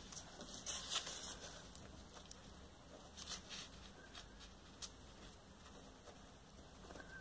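Faint rustling and rubbing of a cloth wiped over an inked acetate drypoint plate by gloved hands, in a few short scratchy strokes, the strongest about a second in and again around three seconds in.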